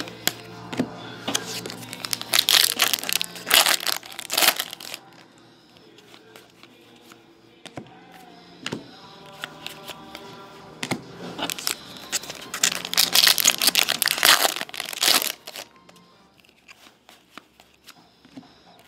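A stack of trading cards is flipped rapidly from one hand to the other, a dry rustling and flicking of card stock. It comes in two spells, from about a second in to nearly five seconds and again from about eleven to fifteen seconds. Faint music plays underneath.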